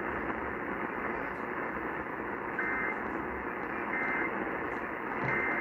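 Steady radio static hiss with three short warbling data bursts about 1.3 s apart in the second half: the Emergency Alert System end-of-message code that closes the warning.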